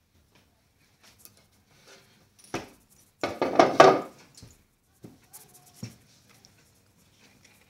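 Phone microphone brushing and knocking against a husky's fur and body: rustling handling noise, with a short burst about two and a half seconds in and the loudest rough scuffle a second later.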